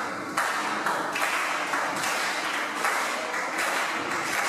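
Crowd clapping and shouting in a hall, a dense patter of claps with scattered sharp hits.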